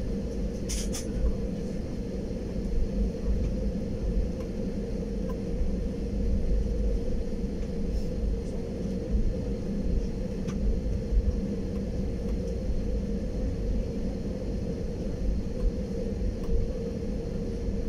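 Jet airliner taxiing, heard from inside the passenger cabin: a steady low rumble with a faint constant hum underneath.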